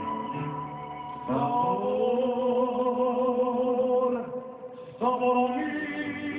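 Mariachi band playing with long, held sung notes: a note swells in a second or so in and fades near four seconds, and a new one rises in about five seconds in. It is heard through a television's speaker, thin and lacking highs.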